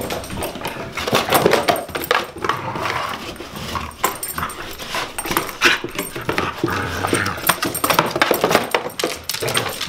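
A small dog playing roughly with a paper envelope, shaking and tearing it: irregular paper rustling and ripping, mixed with the dog's own noises.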